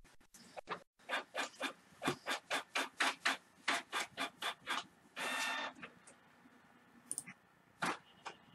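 Canon MG3200-series inkjet printer printing: a run of short rasping strokes about three a second as the print head shuttles back and forth, then a brief whir of the paper feed about five seconds in, and a few clicks near the end.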